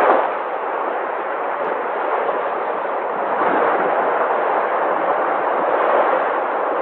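Sea waves breaking and washing in: a continuous rushing surf that eases just after the start, then slowly swells again.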